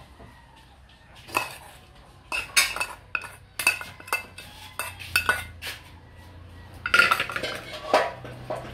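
Metal spoon clinking and scraping against a metal pan as small boiled shrimp are scooped out onto a plate, in a dozen or so sharp, irregular clinks starting about a second in.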